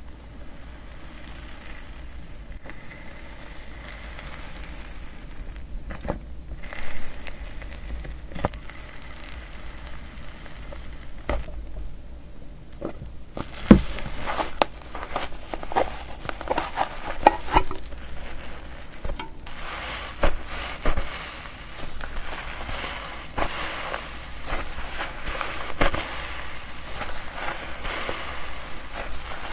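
Slime being squished and stretched by hand, giving a run of small clicks and pops over a wet hiss. The sound grows denser and brighter about two-thirds of the way through.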